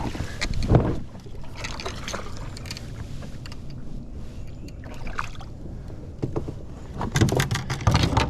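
Knocks and water noise around a bass boat as a hooked bass is fought and brought to the boat, with sharp knocks just under a second in and again near the end.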